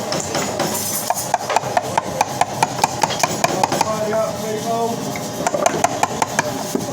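Quick, evenly spaced mallet taps on a chisel chopping a mortise in wood, about four or five strikes a second, in two runs with a short pause between.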